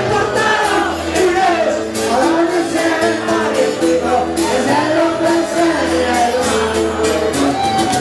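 Live band playing, with a man singing into a microphone over guitar and bass, and cymbals struck steadily throughout.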